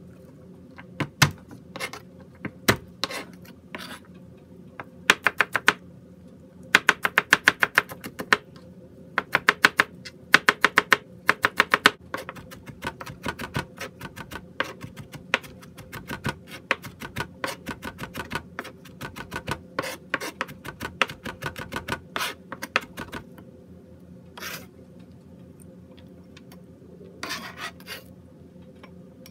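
Chef's knife chopping and mincing garlic on a cutting board: the blade knocks sharply on the board, scattered at first, then in fast even runs of several chops a second, then in lighter, quicker tapping that thins out near the end.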